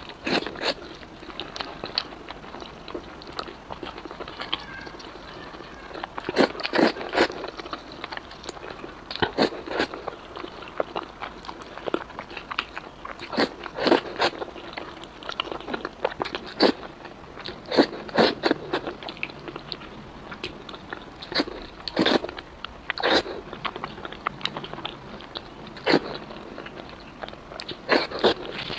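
Eating sounds: wide noodles in chili-sesame sauce being slurped off chopsticks and chewed, with irregular wet sucking and smacking every second or two.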